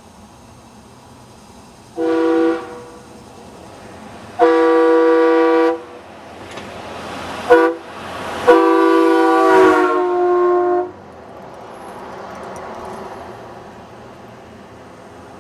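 Wolo Model 847 Siberian Express air horn, a multi-note train-style horn, sounded in four blasts: a short one about two seconds in, a longer one of about a second and a half, a quick toot, then the longest, about two and a half seconds. Near the end of the last blast the pitch of the whole chord drops.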